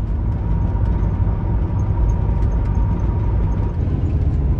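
Pickup truck driving: a steady low engine and road rumble, with a faint steady whine that fades out near the end.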